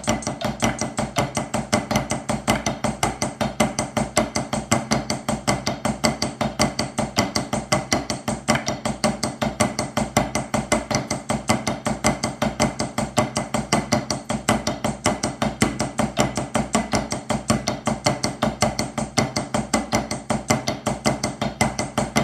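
Drumsticks playing Swiss Army triplets as a steady 16th-note pattern at 80 beats per minute: each group of three strokes starts with a flam, in an even run of quick sharp strikes.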